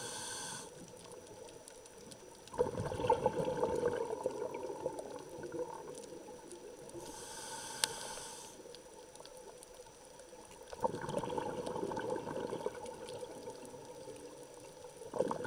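Scuba diver breathing through a regulator underwater: a short hiss as the regulator delivers air on each inhale, then a burst of exhaled bubbles gurgling out for about two seconds. The cycle comes twice, and another exhale begins near the end.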